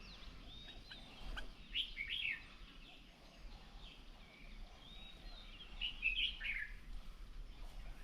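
Wild birds chirping and calling, with two louder phrases of quick, falling notes about two seconds and six seconds in.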